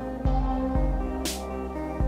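Background electronic music with a steady beat: sustained tones over a deep bass pulse about every half second, with a rising cymbal-like swell near the end.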